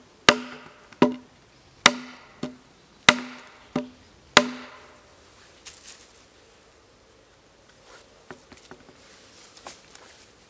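A hatchet's back pounding a wooden stake into the forest floor: seven sharp wooden knocks, each with a short low ring, about two every second and a half. The blows stop about four and a half seconds in, leaving faint rustling as the stake is handled.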